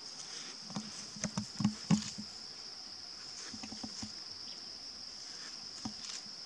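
Steady high-pitched insect trill. Between about one and two seconds in come a handful of short, close, soft thumps and rustles, the loudest near two seconds.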